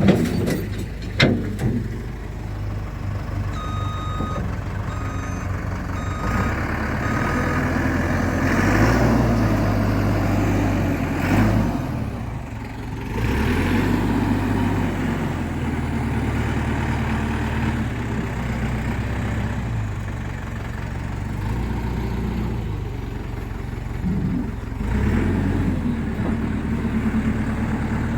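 Diesel engine running and working under changing load, its note rising and falling several times as the machine is moved onto the trailer. A string of evenly spaced warning beeps sounds for a few seconds early on, and two sharp knocks come right at the start.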